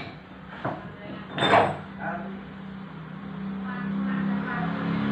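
Metal parts of a fish-feed pellet machine, pillow-block bearings and a steel shaft, clinking and knocking together as they are handled, with a few sharp knocks in the first two seconds. A steady low hum then builds and grows louder through the second half.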